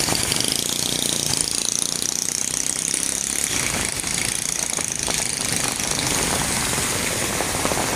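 Heavy monsoon rain coming down hard on the street, a steady dense hiss and crackle of drops.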